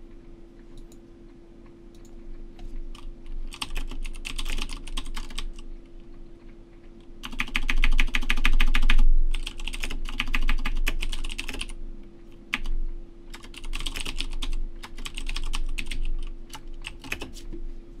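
Typing on a computer keyboard, in several quick runs of keystrokes with short pauses between them; the densest and loudest run comes about halfway through. A steady low hum sits underneath.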